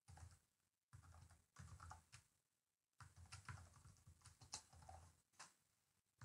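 Faint typing on a computer keyboard, in short runs of keystrokes separated by brief pauses.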